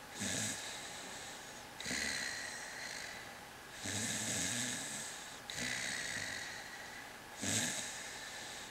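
Soft-coated wheaten terrier snoring in deep sleep. There are five breaths, one about every two seconds, each a short low rattling snore that runs into a longer airy hiss.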